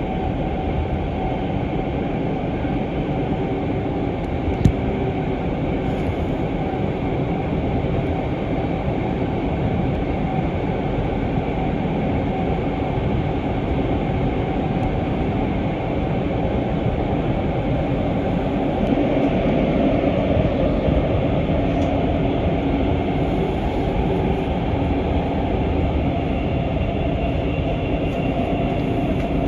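Steady running noise heard inside a GTX-A express train car travelling between stations, a dense rumble with faint steady whining tones that swells slightly about two-thirds of the way through. A single brief click sounds about five seconds in.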